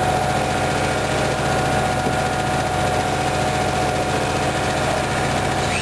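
Small generator engine running steadily on syngas from a downdraft gasifier, an even mechanical drone with a constant pitch.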